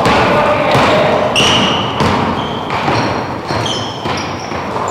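Basketballs bouncing on an indoor court, several thuds echoing through the hall, with short high sneaker squeaks and players' voices in the background.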